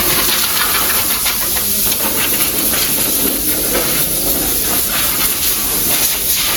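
High-pressure water spray washing a motorcycle at a service-centre wash bay: a steady hiss.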